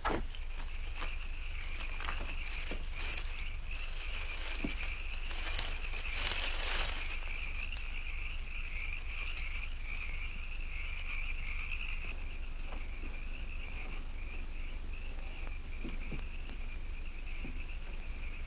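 Steady night-time chorus of crickets chirping over a constant low hum, with a scattering of faint clicks in the first several seconds.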